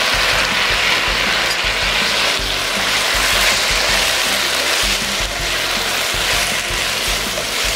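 Fish pieces, leaves and chillies sizzling in a hot wok as they are stirred with a spatula, a steady frying hiss, with background music underneath.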